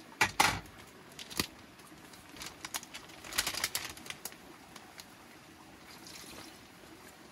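Thin plastic bag crinkling and rustling as it is handled, in several short crackly bursts, loudest in the first half second and again about three and a half seconds in.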